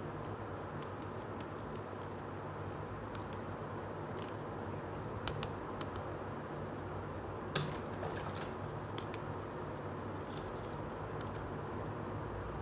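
Small plastic toy pieces, a toy basket and toy fruit, clicking and tapping lightly as they are handled and set down, with one sharper click about two thirds of the way through. A steady low hum runs underneath.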